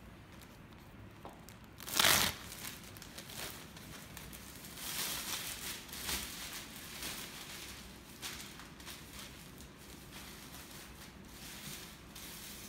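Thin polyethylene disposable apron ripped off its pad with one short, loud tear about two seconds in, then the plastic film crinkling and rustling as it is shaken open and put on.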